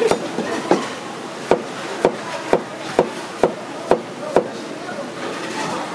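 Chef's knife slicing a cucumber lengthwise into thin strips, the blade knocking on the cutting board about nine times at roughly two strokes a second, stopping about four and a half seconds in.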